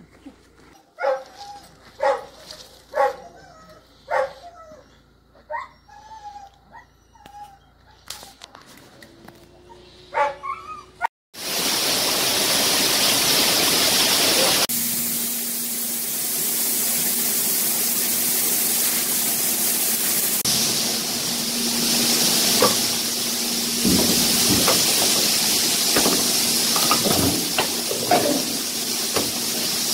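Police detection dog barking, a string of short barks about one a second for about ten seconds. Then, after a sudden cut, a loud steady hiss with a low steady hum and a few knocks.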